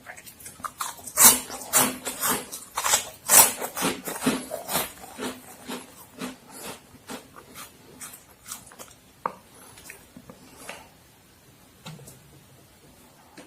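Close-miked crunchy chewing of Momogi, an extruded corn-stick snack: rapid crisp crunches, loudest and densest in the first few seconds, thinning out to sparse, softer crunches toward the end.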